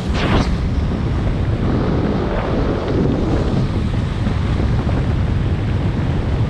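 Wind buffeting the camera's microphone as the skydiver descends under the parachute canopy: a steady, loud rush that is heaviest low down, with a brief gust right at the start.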